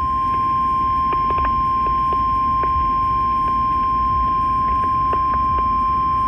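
NOAA Weather Radio 1050 Hz warning alarm tone, one steady unbroken pitch over radio static with scattered clicks. It signals that a warning broadcast is about to follow, here a severe thunderstorm warning.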